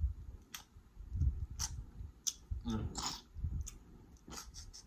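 Close-miked eating of a seafood boil: chewing with wet mouth clicks and the snap of crab shell as meat is pulled from a cooked crab leg. A short voiced sound comes about three seconds in.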